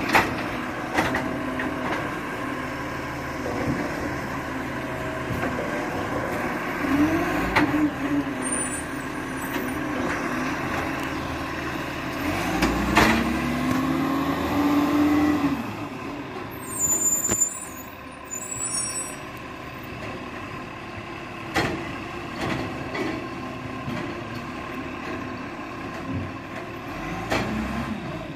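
Iveco Acco recycling truck's diesel engine running as it works along the kerb, with several sharp knocks, a whine that rises and then falls twice, and short air-brake hisses.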